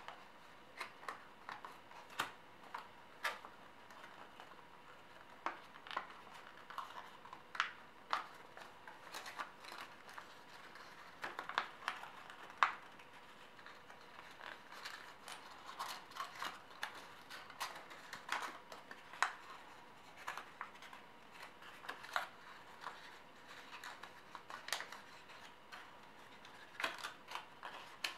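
A square of origami paper being folded by hand: irregular crackles and rustles as the paper is bent and the creases are pressed.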